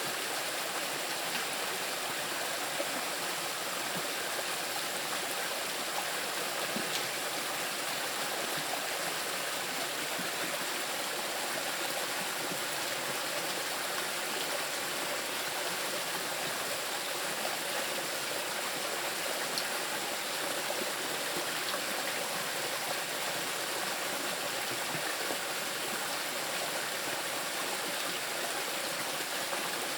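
Small river rushing steadily over rocks, a continuous even splashing and gurgling with no breaks.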